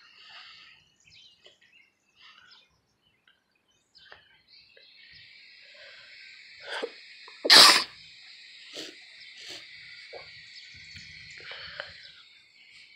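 A single loud human sneeze a little past the middle, with a shorter, smaller sound just before it. A faint, steady, high-pitched drone runs behind it.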